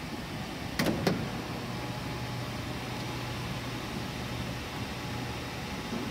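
Electric wing-flap motor of a light aircraft running as the flaps extend: a steady low hum for about three and a half seconds, after two sharp clicks about a second in.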